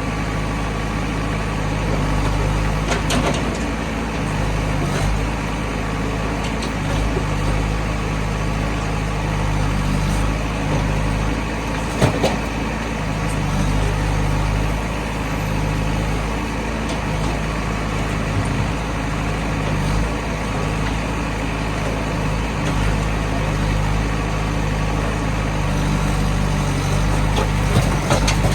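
Heavy diesel engine of a backhoe loader working steadily, with a few sharp knocks, the loudest about twelve seconds in.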